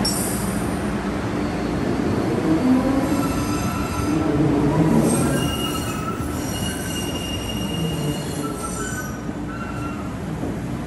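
MBTA Green Line Type 7 light-rail train pulling out of an underground station, its running gear rumbling. From about three seconds in, high thin wheel squeals come and go as it moves off.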